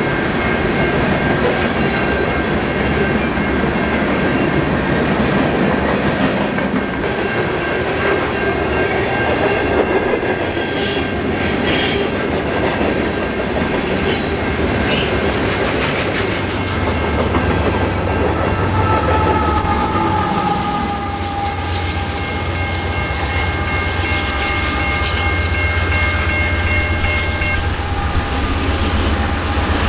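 Freight cars rolling past with steady rail noise, a thin wheel squeal and a run of sharp clanks in the middle. In the second half a Norfolk Southern diesel locomotive comes closer and its engine running adds a strong low, steady hum, with a few high squealing tones over it.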